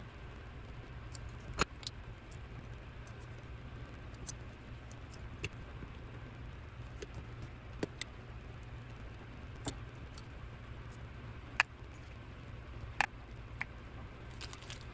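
Small metal carburetor parts clicking and tapping against each other and the bench as a twin-choke carburetor is reassembled by hand. The clicks are scattered and irregular, with a few sharper ones about a second and a half in and near the end, over a steady low hum.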